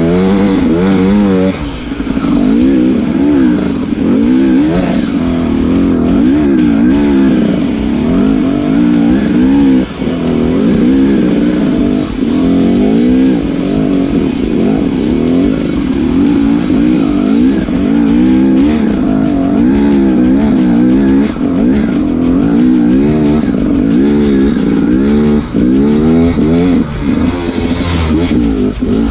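KTM dirt bike engine revving up and down again and again while lugging up a steep dirt hill climb.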